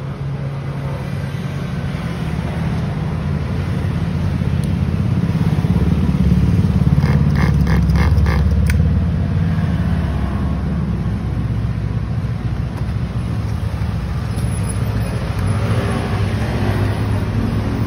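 Nitro engine of a HOBAO Hyper Truggy SS RC truggy running steadily at a low idle on its first run. It grows louder about a third of the way through, with a short run of light clicks.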